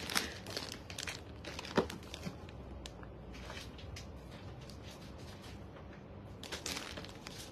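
Clear plastic wrap crinkling as it is handled: scattered crackles in the first couple of seconds and a longer rustle about six and a half seconds in.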